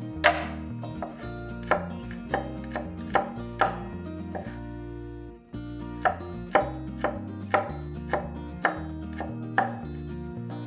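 Knife chopping garlic cloves on a wooden cutting board: irregular sharp taps, about one or two a second, with a short pause about halfway through.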